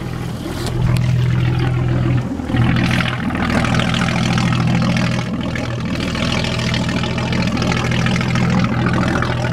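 Original Gray Marine 140 flathead straight-six running steadily at idle, heard at the stern's wet exhaust outlet, with cooling water spilling out with the exhaust. The engine note dips briefly a little over two seconds in.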